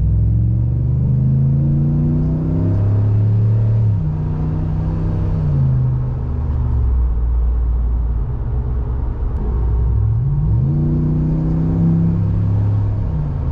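2020 Ram Rebel pickup's engine accelerating hard under full throttle, breathing through a K&N cold air intake. The engine note climbs steadily for about four seconds and drops as the automatic gearbox shifts up, climbs briefly again, then settles lower. About ten seconds in it rises sharply once more and holds.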